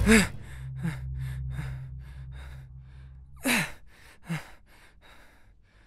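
A man gasping as he jolts awake, then breathing hard in quick breaths that gradually die down. Two louder sighs fall in pitch about three and a half and four seconds in.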